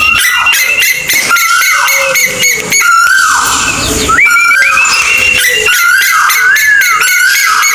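Calls of a kolik bird, a mature bird by the title: repeated whistled notes that rise and then level off, mixed with fast clicking chatter.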